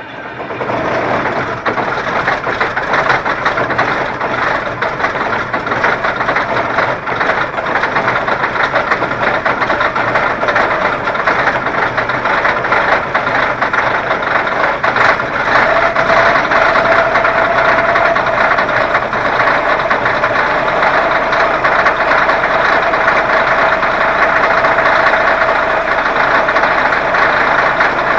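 Caterpillar 637 scraper's diesel engine just started from cold after being plugged in overnight, quickly coming up to a loud, steady run. A steady whine joins about halfway through.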